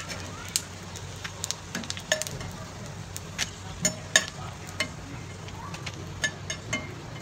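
Rice cutlets shallow-frying in hot oil with a steady sizzle. Over it come irregular clicks and scrapes of a perforated steel skimmer against the pan as the cutlets are lifted out, the loudest about four seconds in.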